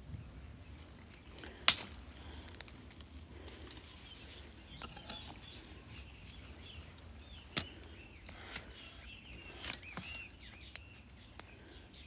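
Dry leaves and twigs rustling as someone pushes through brushy undergrowth, with sharp twig cracks, the loudest about two seconds in and others near eight and ten seconds. Faint bird chirps come in the middle seconds.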